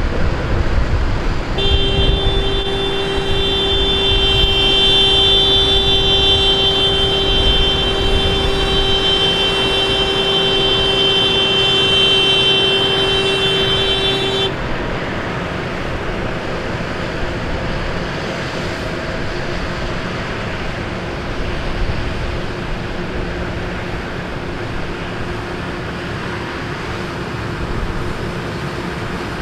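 A vehicle horn in a column of tractors, held in one long steady blast of about thirteen seconds that starts a couple of seconds in and cuts off suddenly, over the low rumble of the tractors' engines.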